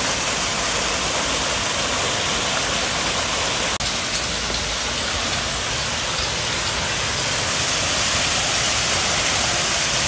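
Steady rushing of water pouring over artificial rock waterfalls into pools. There is a brief drop-out about four seconds in.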